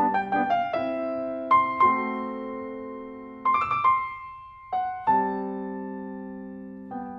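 Background piano music: a quick run of notes at the start, then slower chords struck one after another, each ringing and fading.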